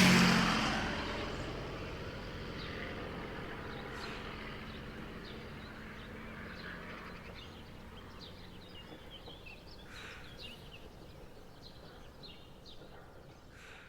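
Aeroplane fading into the distance after flying past, its steady hum slowly dying away, over a bed of faint birdsong.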